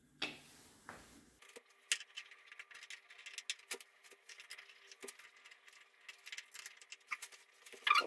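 Light, irregular clicks and rattles of small metal and plastic parts being handled with gloved hands, over a faint steady hum, with a louder cluster of clicks near the end.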